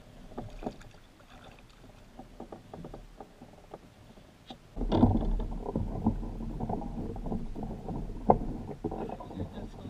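Knocks and rattles of gear being handled against a plastic fishing kayak's hull, over water sounds at the boat, faint at first and becoming much louder and busier about five seconds in.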